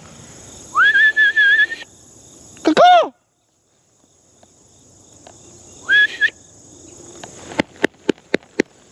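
A person whistling to call animals over: a held, slightly warbling whistle about a second in and a short one about six seconds in, with a wordless rising-and-falling call between them. A steady high buzz of crickets or other insects runs underneath, and a few sharp clicks come near the end.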